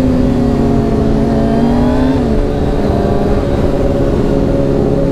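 2018 Kawasaki ZX-6R's inline-four engine running through an Akrapovic slip-on exhaust while riding, a steady engine note that eases slightly down in pitch over the first two seconds.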